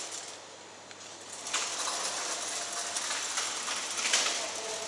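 Metal lattice security grille over a shop window rattling and clanking as it is handled and pulled, with a sharp click about a second and a half in and another near four seconds.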